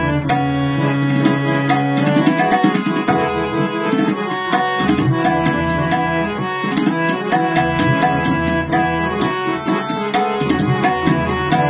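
Harmonium playing a melody in held reed tones over a steady drum rhythm: an instrumental passage with no singing.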